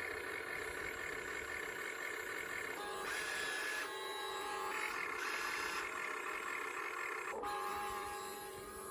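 Small electric motors and gearboxes of a toy remote control excavator whining as it is driven and worked, the pitch shifting several times as different motors start and stop, with a short click about seven seconds in.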